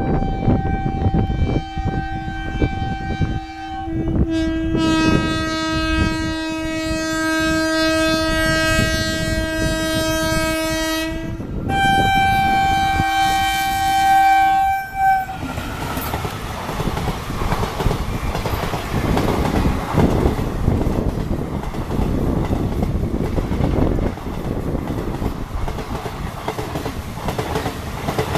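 WAP-1 electric locomotive's horn sounding in long blasts over the rumble of the train: a higher note for about four seconds, then a lower, fuller note for about seven seconds, then the higher note again for about three seconds. After that the horn stops and the train's wheels clatter steadily over the rails as it runs past.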